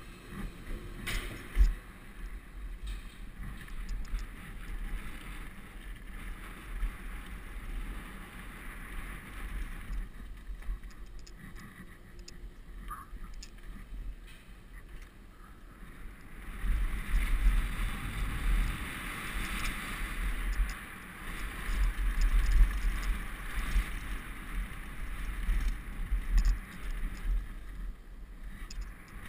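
Downhill mountain bike rolling over a dirt and gravel trail, with wind buffeting the microphone: a steady rough rumble of tyres and wind, with a sharp knock about a second and a half in. It gets louder and rougher from about halfway as the bike picks up speed.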